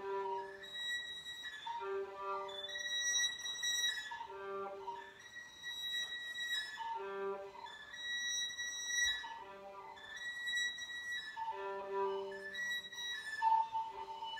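Solo violin, bowed, playing a slow phrase of held notes, each started afresh every second or two, some down near the instrument's lowest string.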